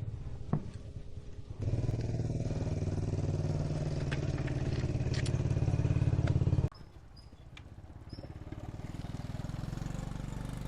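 Motorbike engine running, louder for a few seconds, then cutting off abruptly about two-thirds of the way through, with a quieter engine sound going on after.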